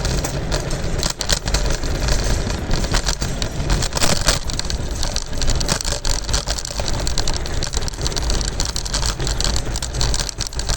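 Scooter ride: wind buffeting the microphone over the rumble of the scooter's wheels rolling on pavement, with scattered short knocks from bumps.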